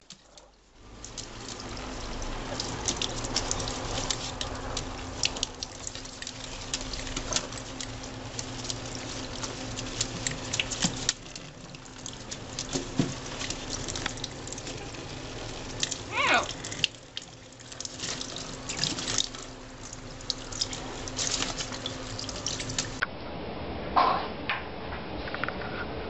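Tap water running into a stainless-steel sink while an Amazon parrot bathes under it, flapping its wings and splashing, with many small splashes over the steady run of water. A short call rises and falls about two-thirds of the way through.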